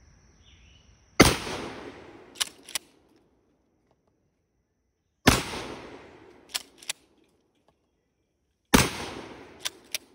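Three shots from a Browning BPS 10-gauge pump-action shotgun, about four and three and a half seconds apart. Each loud blast trails off over about a second. About a second after each shot come two quick clacks as the pump is worked back and forward to chamber the next shell.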